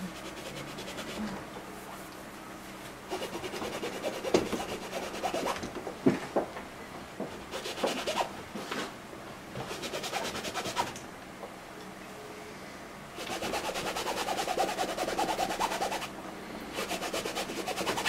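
Fingertips rubbing and wiping wet oil paint on a stretched canvas, in several spells of scratchy rubbing a second or more long, with a couple of light knocks against the canvas.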